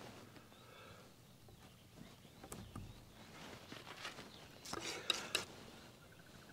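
Faint bird calls over quiet outdoor dawn ambience, with a short burst of scraping clicks about five seconds in.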